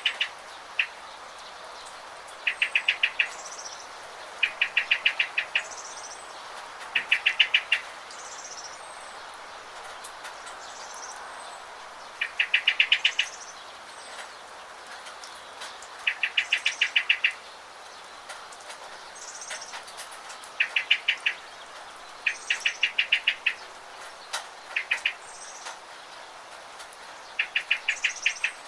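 Songbirds singing: short rapid trills of repeated notes every few seconds, with thin high chirps between them, over a steady hiss of falling rain.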